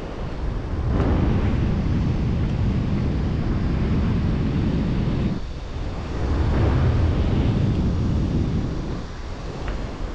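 Airflow buffeting the microphone during a paraglider flight: a steady low rush that swells in gusts about a second in and again around six to seven seconds.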